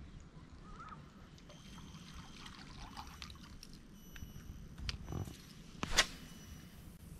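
Water dripping and trickling from a fishing lure being reeled to the bank and lifted out of the water, with a single sharp click about six seconds in.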